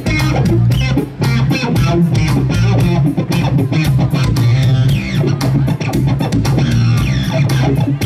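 Live rock music led by an amplified electric guitar, with bass guitar and a steady, fast drum beat.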